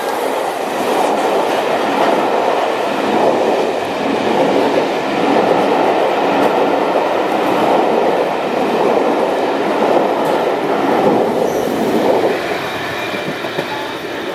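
A steam-hauled passenger train behind A1 Pacific 60163 Tornado rolling past at speed, a dense steady rumble of wheels and carriages on the track. The noise eases off about twelve seconds in as the train draws away.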